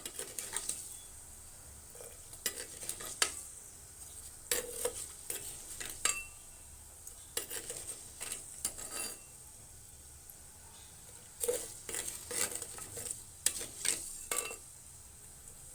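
A spoon stirring mustard seeds, fenugreek and cumin frying in hot oil in a pot, in short bouts of scraping and clicking with pauses between, over a faint sizzle. The seeds are being fried until the fenugreek turns colour.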